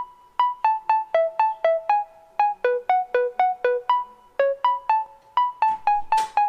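Background music: a bouncy melody of short, quickly fading notes, about four a second. A brief burst of noise cuts in near the end.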